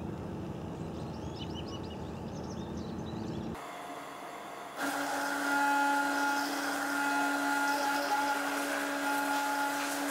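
Outdoor rumble with a few faint high chirps. About five seconds in, an electric overhead garage door opener starts and runs with a steady hum as the shop door rises.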